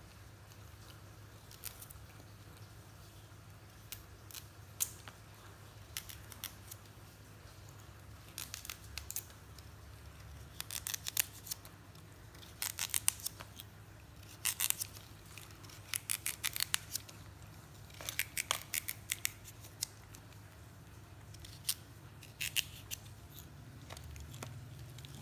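Vegetables being cut by hand with a small knife: crisp cutting clicks in quick bursts, several times over, over a low steady hum.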